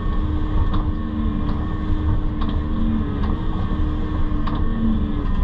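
Excavator engine running steadily as the machine works, with light clicks about once a second.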